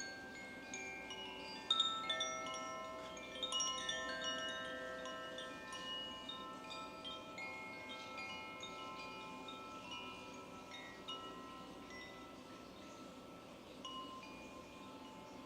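Koshi chimes being played: clusters of bright tones struck in quick succession, ringing and overlapping as they fade. The loudest strikes come a little under two seconds in and again around three and a half seconds in.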